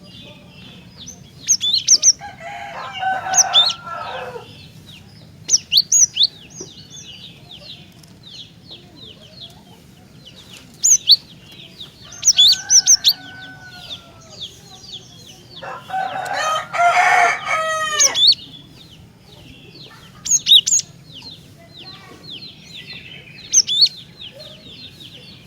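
Cinereous tit (glatik batu) singing in rapid runs of short, sharp high chirps. A rooster crows twice, about two seconds in and again past the middle; the second crow is the loudest sound.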